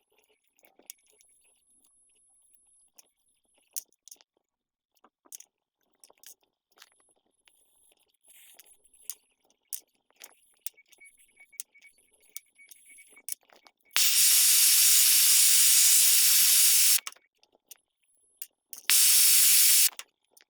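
Small metal pieces clicking and tapping lightly as they are arranged for soldering, then a hand-held MAPP gas torch hissing steadily for about three seconds. It cuts off abruptly and comes on again for about a second near the end.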